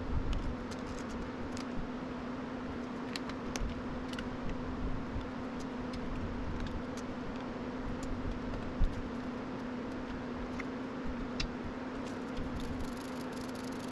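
Scattered small clicks and taps of hands working on a graphics card, over a steady low hum. There is one sharper knock partway through.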